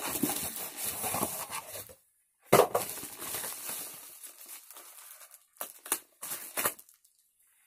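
Cardboard box and its packing rustling and crinkling as it is unpacked by hand, with a few sharp handling clicks and knocks. The sound cuts out completely for a moment about two seconds in and again near the end.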